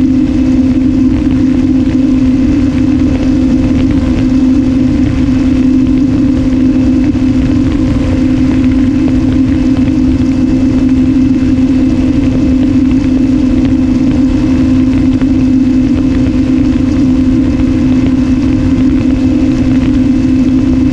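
Electric motor and propeller of an RMRC Strix Strato-Surfer running steadily under power in level flight, one unchanging tone with wind rushing over the nose-mounted GoPro's microphone.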